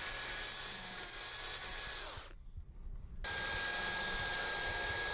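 Chainsaw running with a steady whine while cutting holes into the dead branches of a tree. It cuts out for about a second around the middle, then starts again.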